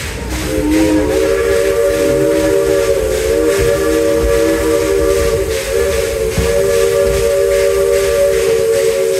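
Narrow-gauge steam locomotive's chime whistle blowing one long blast, heard from the train. Its several notes slide up as it opens about half a second in, then hold steady, over the rumble of the moving train.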